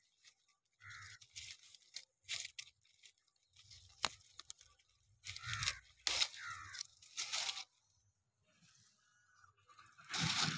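Sugar apple leaves rustling and scraping in irregular bursts as a hand pushes through them close to the microphone, with a sharp click about four seconds in.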